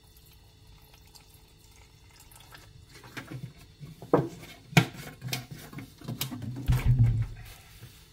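A faint trickle of 2K paint reducer poured from a metal can into a plastic mixing cup, then a run of sharp knocks and clatter as the can is set down and the cup and stir stick are handled, the loudest knock just before the middle.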